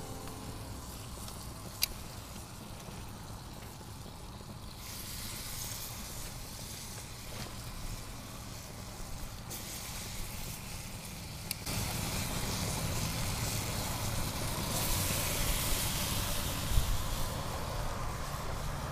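Baby back ribs sizzling on foil on a gas grill: a steady hiss over a low rumble, growing louder about twelve seconds in. A single sharp click comes about two seconds in.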